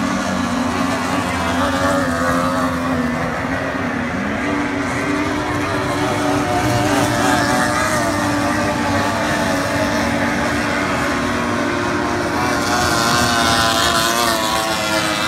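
Several 50 hp outboard engines on racing tunnel-hull powerboats, a steady drone whose pitch wavers as the boats pass at speed.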